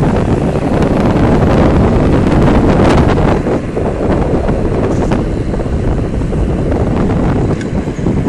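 Wind buffeting the microphone of a camera on a moving electric bicycle, over the rumble of tyres on asphalt. It eases slightly about three seconds in.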